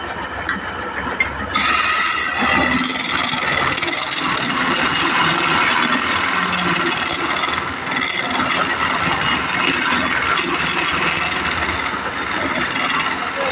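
A woodworking machine running with a steady, loud mechanical noise that starts suddenly about one and a half seconds in.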